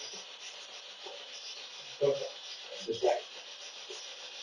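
Spirit box (an SB7-type radio that sweeps rapidly through stations) putting out a steady static hiss. Brief garbled voice-like fragments break through about two and about three seconds in.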